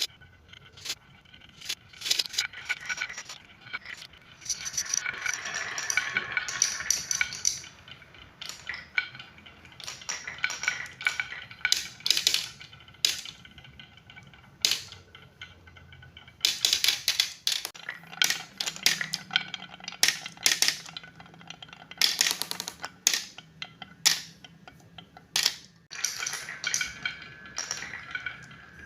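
Marbles rolling and clattering down a marble run, with many sharp clicks and clacks as they drop onto and strike the track pieces, and stretches of denser rolling rattle.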